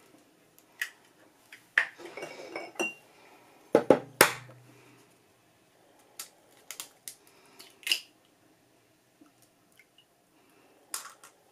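Eggs cracked one after another against the rim of a stainless-steel saucepan: a series of sharp taps and clinks of shell on metal, the loudest about four seconds in, as the shells break and the eggs drop into the pan.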